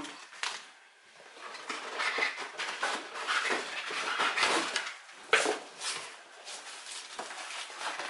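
Cardboard and packing material rustling and scraping as hands rummage inside a cardboard box, with irregular small knocks and one sharper knock about five seconds in.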